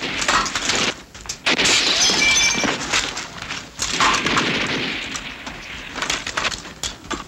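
Battle sound effects: sharp shots and impacts. About one and a half seconds in comes a long crash of breaking glass and falling debris, which fades away over several seconds.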